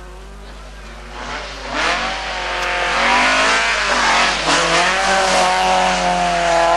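Rally car engine approaching at speed, its revs rising and dropping with lifts and gear changes. It gets much louder about three seconds in as the car nears.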